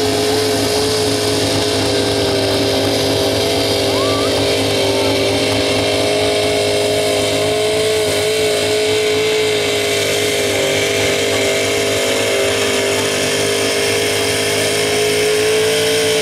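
Engine of a 6,200 lb two-wheel-drive super stock pulling truck running hard under full load as it drags a pulling sled, its note held at a steady high pitch with its rear tyres spinning in the dirt.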